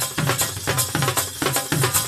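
Two dhols played together in a fast bhangra rhythm, several strokes a second: deep bass-side strokes that slide down in pitch, mixed with sharp cracks from the treble side.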